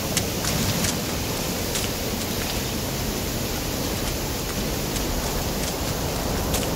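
Steady rushing noise, even and unbroken, with a few faint clicks from footsteps on ice and snow near the start and again near the end.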